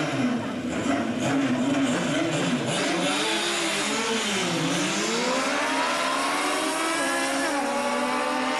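Drag-racing motorcycle engine blipped up and down on the start line, then launched and accelerating hard down the strip, its pitch climbing steadily with a gear change about seven seconds in.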